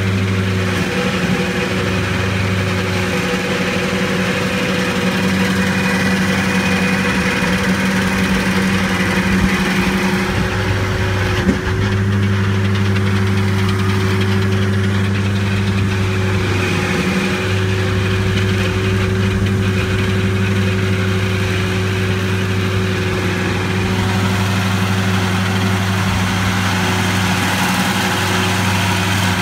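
Stump grinder's engine running steadily and loud, with its drone wavering briefly a few times as it works on a tree stump.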